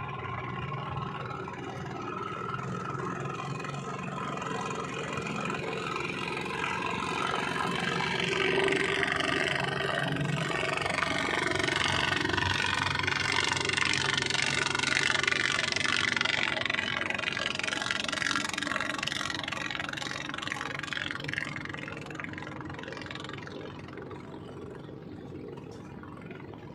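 Speedboat engine running at high speed as the boat passes across the water, growing louder to a peak about halfway through and then fading away.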